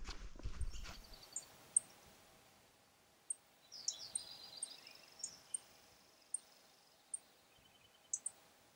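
A few footsteps on a dirt trail in the first second, then quiet forest with wild birds calling: short high chips repeating every second or so, a longer song phrase about four seconds in and a brief trill near the end.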